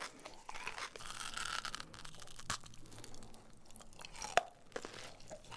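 Close-miked crunching and chewing of a thick chocolate bar filled with crisp green shredded pastry, with a few sharp snaps; the loudest snap comes about four and a half seconds in.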